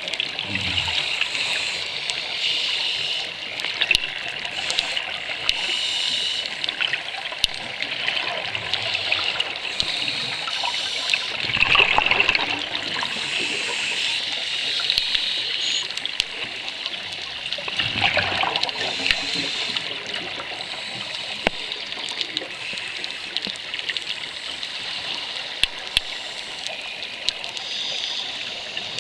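Heard underwater, scuba divers' exhaled bubbles from their regulators give a steady bubbling hiss. Two louder bubbling swells come about a third and two-thirds of the way through.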